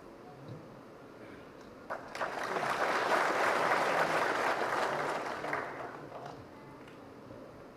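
Audience applauding: the clapping starts about two seconds in, swells, then fades out around six seconds in.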